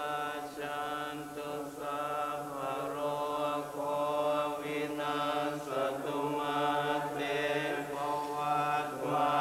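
Buddhist monks chanting together in unison: a low, steady chant on a held pitch, moving in phrases of about a second.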